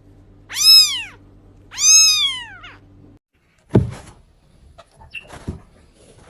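A cat meowing twice, each meow rising and then falling in pitch, over a low steady hum. The hum cuts off suddenly, and a dull thud follows, then a few faint knocks and rustles.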